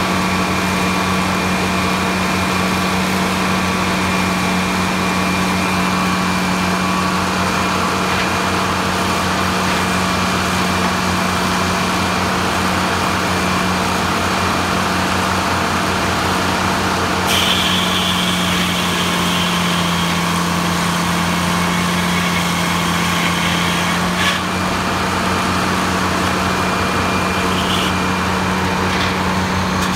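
Large circular-blade sawmill running steadily with an even low hum. About seventeen seconds in, a higher whine and hiss join for some seven seconds and then stop abruptly, as the blade cuts a slab off the log.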